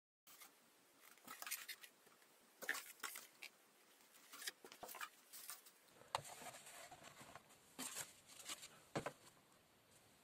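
Plastic Exin Castillos toy castle base plates being handled and fitted together by hand: quiet, scattered clicks and taps in small clusters.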